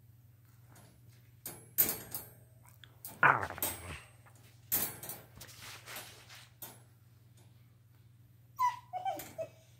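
Puppy barking a few short times, then whimpering with thin high whines near the end.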